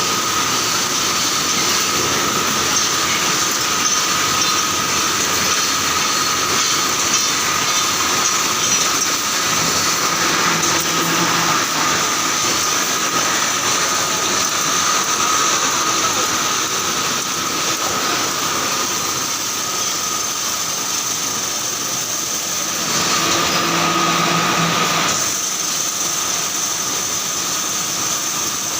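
Wire mesh welding machine running continuously: a dense, steady mechanical clatter and hiss with a constant high whine over it.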